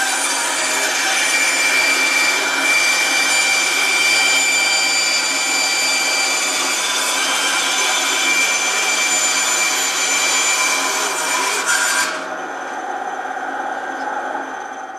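Bandsaw with a metal-cutting blade cutting through micarta, a loud steady rasping hiss over the motor's hum. About twelve seconds in the cut ends and the saw runs on more quietly, then stops near the end.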